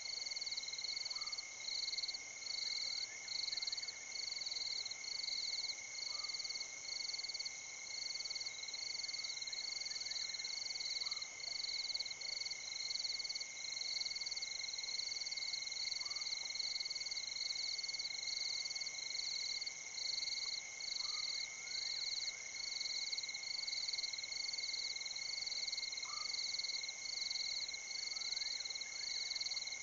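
Night chorus of frogs and insects at the water's edge. A high call pulses a little more than once a second over a steady high drone, and a short, lower rising note comes about every five seconds.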